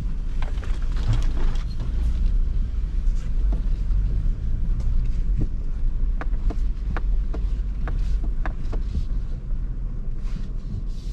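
2022 Nissan Frontier Pro-4X's 3.8-litre V6 running with a steady low rumble as the truck crawls over rock, with scattered sharp clicks and knocks throughout.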